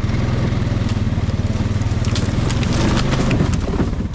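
ATV engine running at low revs, its exhaust pulsing evenly, with a haze of rustling noise and a few scattered clicks over it.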